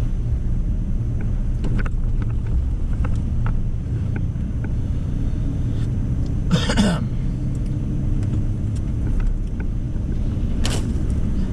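Pickup truck driving slowly on a snowy road in four-wheel drive, heard from inside the cab as a steady low rumble of engine and tyres. A brief, louder noisy sound cuts in a little past halfway, and a shorter one near the end.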